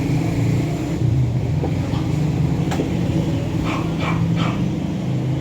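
A steady low rumble, with a few short puppy whimpers about two-thirds of the way in.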